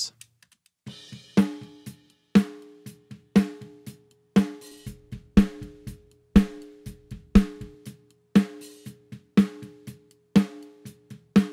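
Recorded snare drum playing a steady beat, a hard hit about once a second with quieter strokes in between. Each main hit rings on with a humming tone from the drum.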